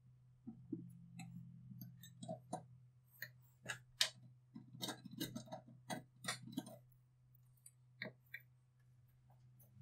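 Irregular light clicks and taps of hand work on metal parts, thickest in the middle, over a steady low hum.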